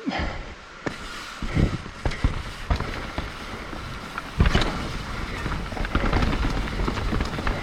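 Mountain bike clattering over rocks on a rough technical trail: irregular knocks and rattles from the tyres and frame, with a heavy thud about four and a half seconds in, and a low rumble of wheels on dirt growing louder near the end.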